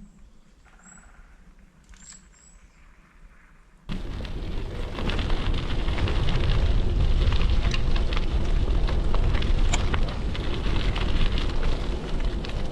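Faint outdoor quiet with a few short, high bird chirps, then, about four seconds in, a sudden switch to loud rumbling wind noise buffeting the camera microphone, with scattered crackles, as when riding a bicycle.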